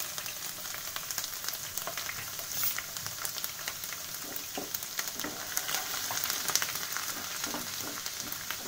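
Chopped garlic sizzling and crackling in hot oil in a kadhai. Near the end, a wooden spatula stirs it with light scraping.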